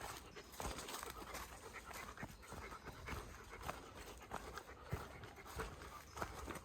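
A hiker panting hard from the climb, with footsteps on the trail.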